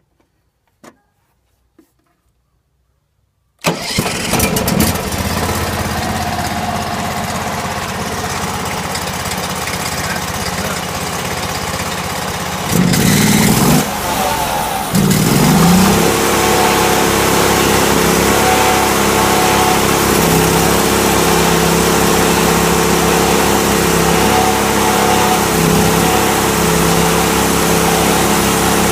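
Norwood HD36 sawmill's engine starting up about four seconds in after a few faint clicks, then running. Around thirteen to fifteen seconds in it changes pitch and gets louder, then runs steadily at the higher speed.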